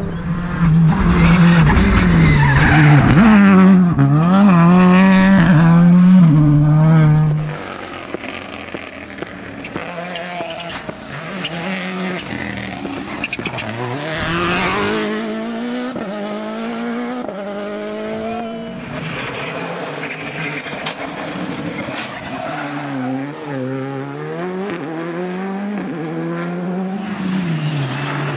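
Rally car engine revving hard up and down through the gears, loud for the first seven seconds or so, then dropping to a quieter, more distant run with further rises and falls in pitch. A short hiss of tyre noise about halfway through.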